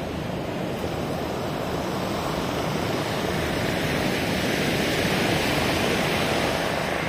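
Steady rush of ocean surf washing up the beach, mixed with wind on the microphone, swelling a little in the second half.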